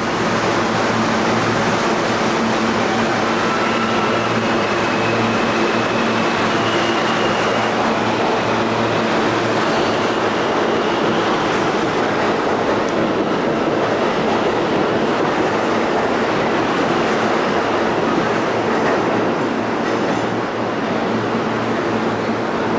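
New York City subway train running along an underground station platform: a loud, steady rumble of wheels on rail with a constant motor hum, easing slightly near the end.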